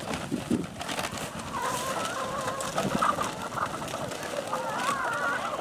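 Chickens calling: several wavering, warbling calls, overlapping from about a second and a half in, over scattered small clicks and rustles.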